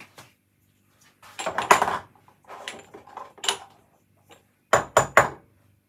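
Spice containers being handled and shaken over a dish of chicken: two short stretches of rattling and scraping, then three quick sharp knocks near the end.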